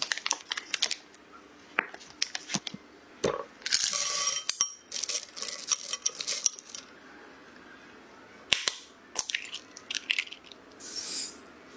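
Kitchen prep sounds: a foil butter wrapper crinkling and tearing, a silicone spatula stirring chocolate chips and butter in a glass bowl with rapid clicks and clinks, then a sharp knock of an egg cracked on a glass bowl and a short pour.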